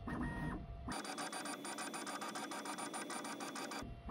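Bambu Lab X1 Carbon's Z-axis stepper motors driving the build plate down on its lead screws, a rapid, even pulsing whir that starts about a second in and stops just before the end. The travel works freshly applied grease into the screw threads.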